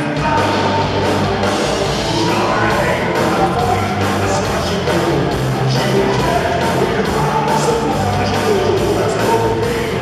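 Live rock band playing with electric guitars, bass and drums, the drums keeping a steady beat.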